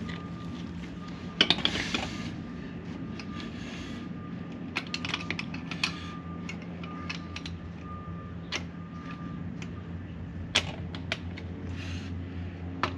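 Scattered sharp clicks and light knocks of storm door closer hardware and tools being handled during fitting, over a steady low hum. The loudest cluster of clicks comes about a second and a half in.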